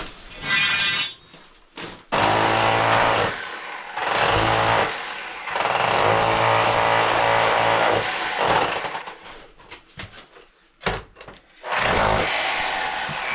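A handheld power tool running in repeated bursts of one to three seconds, with short pauses between, as work is done on the outside section of an old galvanized drain line.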